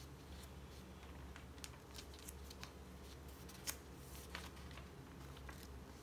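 Pages of a Hobonichi Techo Cousin A5 journal turned by hand: faint rustling and soft clicks of thin Tomoe River paper stiffened with paint and collage, with a sharper page flick a little before four seconds in.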